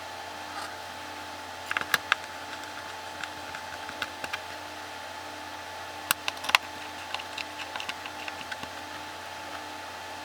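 Scattered light clicks and taps over a steady electrical hum, in small clusters about 2 seconds in and about 6 seconds in, with lighter ticks after.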